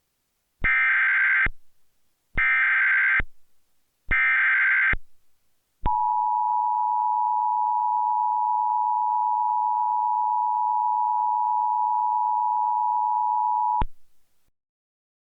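Emergency Alert System activation: the SAME digital header sent three times as short bursts of warbling data tones about a second apart, then the two-tone attention signal (853 and 960 Hz) held steady for about eight seconds and cut off, heralding a civil emergency message.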